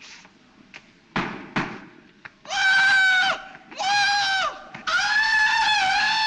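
A man's Tarzan-style jungle yell: a loud, high, wavering yodel in three long stretches, starting about two and a half seconds in. Two dull thumps come about a second before it.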